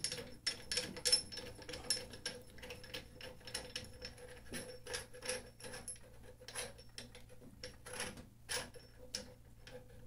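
Irregular metal clicks, taps and scrapes as the coated heating sockets of a PPR pipe fusion welder are pressed and worked onto its heating plate, a tight fit, over a faint steady hum.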